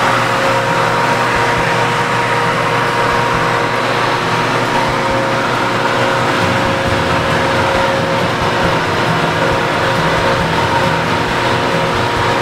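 A 12-foot Chicago flatwork ironer running, its motor and heated roll turning to feed a sheet through: a steady machine drone with a faint, constant whine on top.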